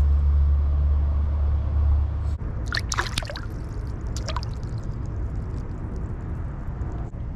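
Water splashing around a hooked crappie held at the surface on the line, with a few sharp splashes about three seconds in and again a little after four seconds. A low rumble fills the first two seconds.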